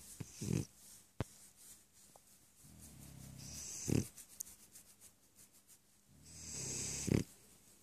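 French bulldog snoring in three cycles about three seconds apart, each a low rattling snore that builds for about a second and ends in a short, louder snort-like burst.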